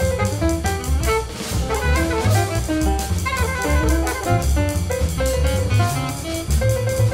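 Free-jazz quartet playing: alto saxophone, piano, bass and drum kit, with many quick shifting notes over a walking bass and a dense run of cymbal and drum strokes.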